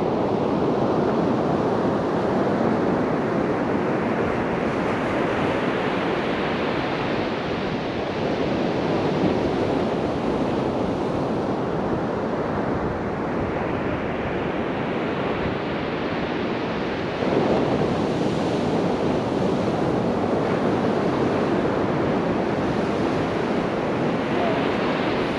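Sea surf washing onto the beach: a steady rushing noise that swells and ebbs as the waves come in, rising sharply again about two-thirds of the way through.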